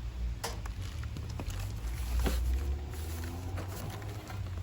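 A package of antique hand saws being opened and handled: scattered knocks and rustling over a steady low rumble, with a faint drawn-out pitched sound around the middle.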